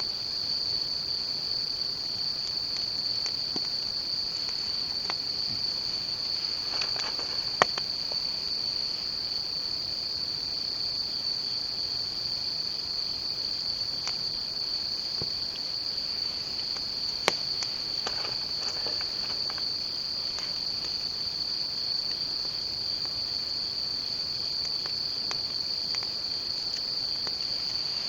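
Night insects chirring in an unbroken high-pitched chorus at a steady level. A sharp click comes about a quarter of the way in and another a little past halfway.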